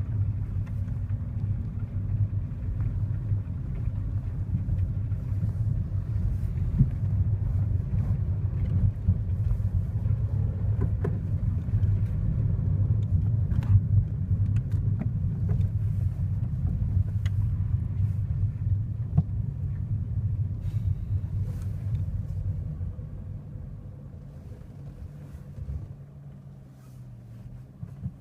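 Cabin noise of a 2015 Kia Rio on the move: a steady low rumble of engine and road, with short ticks and creaks here and there. The rumble dies down over the last few seconds as the car slows.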